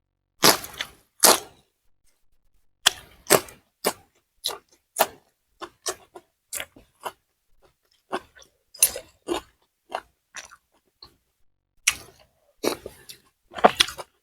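Close-up chewing and crunching of food in the mouth, short crisp crunches coming about once or twice a second with brief pauses between runs.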